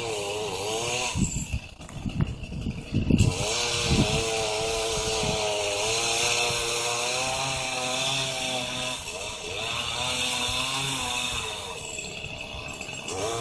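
Gas chainsaw running and cutting wood, its pitch wavering as it works; about a second and a half in it drops briefly and a few heavy thumps sound before it picks up again.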